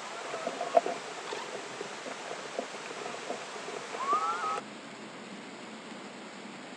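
Light clicks and handling noises from a small plastic drone frame being fitted together by hand, over a steady hiss, with a brief rising squeak about four seconds in. After that only the hiss remains.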